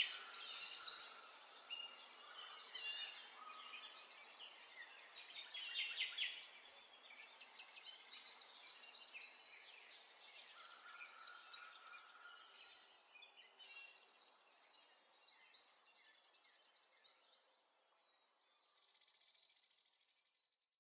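Birds chirping and trilling rapidly and continuously, thinning out and growing fainter toward the end.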